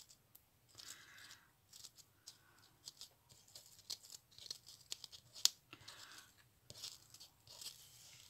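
Faint rustling and light clicking of paper craft pieces being handled and arranged, with one sharp click about five and a half seconds in.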